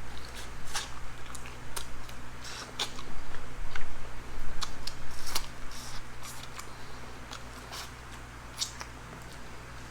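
Close-miked eating: irregular crisp crunches and wet chewing clicks, busiest in the first half and thinning out toward the end, over a steady low hum.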